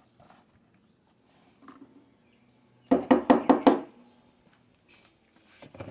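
A quick clatter of about six sharp knocks in under a second, with a short hollow ringing, about three seconds in: a hard object being knocked or set down while tools and parts are put away.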